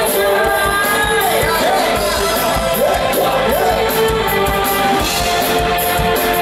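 Loud live band music with a singer: a wavering, gliding melody over held chords and a steady beat.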